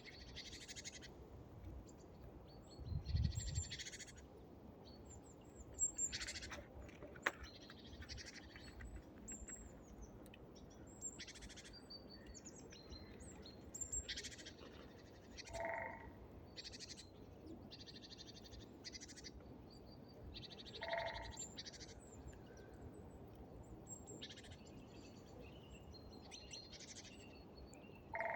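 Small forest birds at a winter feeder calling again and again in short, high chattering bursts, with a lower call heard twice. A low thump comes about three seconds in.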